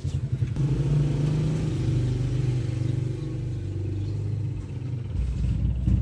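Low, steady rumble of a motor vehicle's engine running, its pitch shifting slightly and growing heavier near the end.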